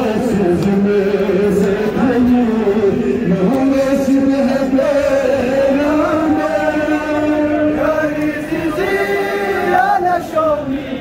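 Men chanting a noha, a Shia mourning lament, into handheld microphones, a group of voices joining in on long held notes that shift in pitch every second or two.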